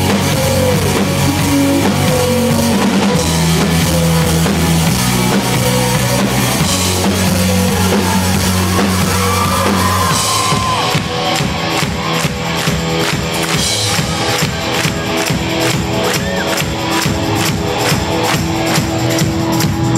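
Live rock band playing loudly, with drums and bass, picked up by a phone's microphone. About halfway through the music changes to a steady pounding beat of about two hits a second.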